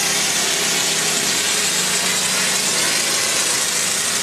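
Hose-fed spray gun hissing steadily as it sprays a drywall wall, with a steady motor hum underneath.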